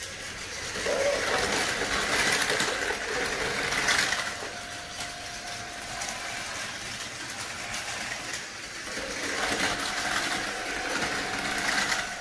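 Two battery-powered Tomy Plarail toy Shinkansen trains, an E6 Komachi with an upgraded Atomic Tuned2 motor and a Hayabusa, running on plastic track: small motors whirring and wheels clattering. It grows louder as the trains pass close, about a second in and again near the end.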